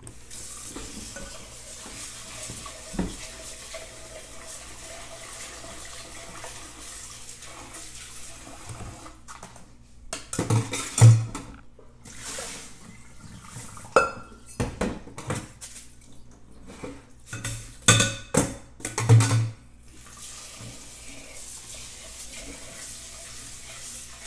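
Kitchen tap running into a sink. Midway it is broken by several seconds of clattering knocks of dishes and pots being handled.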